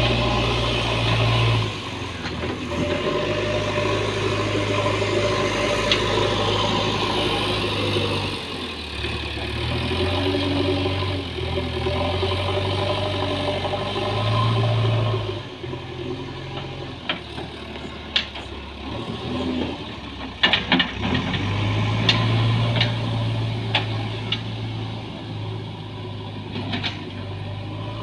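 JCB backhoe loader's diesel engine running, its note rising and falling as it works under varying load and easing back to a lower idle for a few seconds. Several sharp knocks come in the quieter stretch past the middle.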